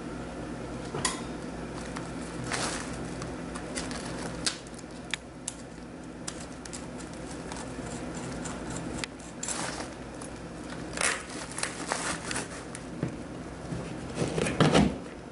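Hand handling of a plastic ceiling air outlet and its foil-jacketed supply tubing as they are pushed up into a drywall hole: scattered clicks, taps and crinkly rustles, with a louder cluster of rustling knocks near the end.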